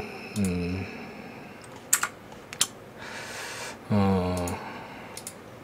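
Scattered clicks and taps from a computer keyboard and mouse, a handful of isolated strokes. Two short wordless vocal sounds come from a low voice, about half a second and four seconds in.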